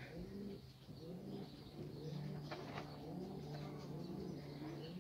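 Doves cooing: a low call that rises and falls, repeated about twice a second, over a steady low hum.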